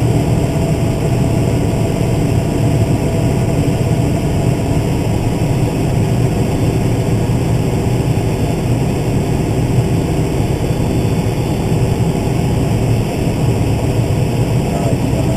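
Case IH 305 Magnum tractor engine running steadily under load at fairly high RPM, a constant deep drone.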